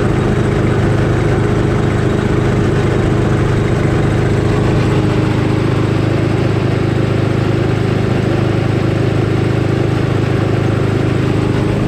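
Engine-driven twin-cylinder air compressor running steadily, pumping air into its tank.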